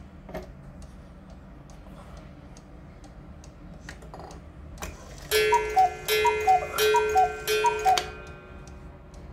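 Black Forest cuckoo clock ticking steadily; about five seconds in, the cuckoo calls four times, each a falling two-note "cuck-oo" over a struck ringing tone that dies away a second after the last call.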